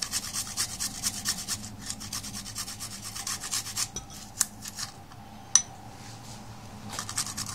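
Garlic clove grated on a hand grater: rapid rasping strokes, about five a second, that thin out midway. A few sharp clicks follow, the loudest about five and a half seconds in, and the strokes pick up again near the end.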